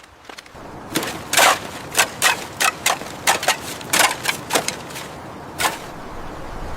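A quick, irregular series of sharp knocks, about fifteen in under five seconds, the last one coming alone about a second after the rest, over a steady background noise.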